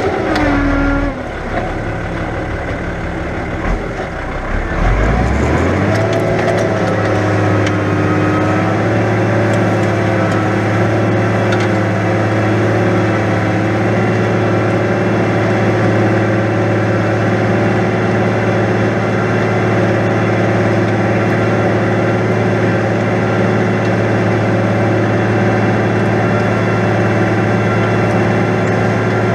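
New Holland 100-90 tractor's diesel engine working under ploughing load in heavy wet ground. Its speed drops and then climbs back up over the first few seconds, and from about six seconds in it runs steadily.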